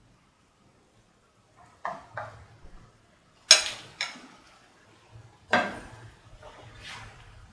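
Metal kitchenware clattering: a few light knocks, then several sharper clanks that ring briefly, the loudest about halfway through.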